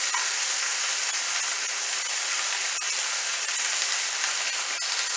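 Chicken pieces frying in a hot skillet: a steady high sizzle with a few small crackles.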